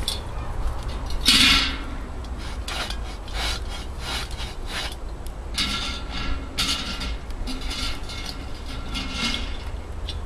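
Repeated scraping and rubbing strokes against a Dutch oven as a freshly baked loaf is worked loose from it. The strokes are irregular, with a faint ring, and the loudest comes about a second and a half in.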